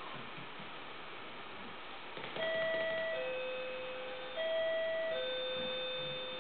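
A two-note ding-dong chime, a higher note then a lower one, sounds twice about two seconds apart, starting a little over two seconds in; the last low note rings on.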